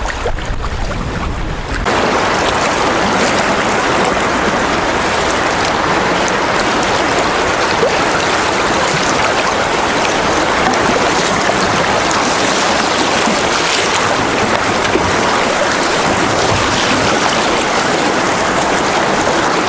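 Rushing river water churning through a small rapid around a canoe, a loud steady hiss that gets louder about two seconds in.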